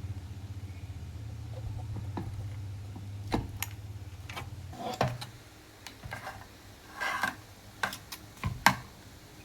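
Steady low mains hum from a California amplifier's speaker output, the humming fault under repair, cutting out a little under five seconds in. A series of sharp clicks and knocks from handling follows.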